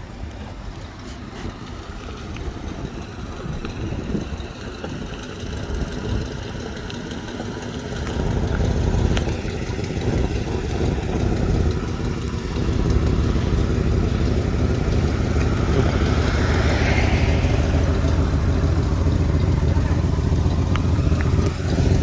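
1968 Ford Mustang's 289 V8 engine running as the car is driven, growing louder about eight seconds in and then holding steady.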